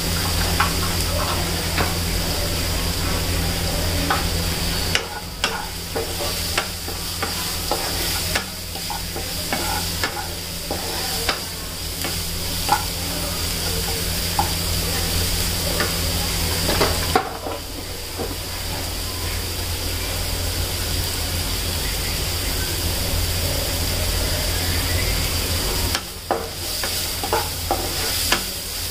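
Chopped onions and green chillies sizzling in hot oil in a nonstick kadai, stirred and scraped with a wooden spatula that clicks and taps against the pan, over a steady low hum.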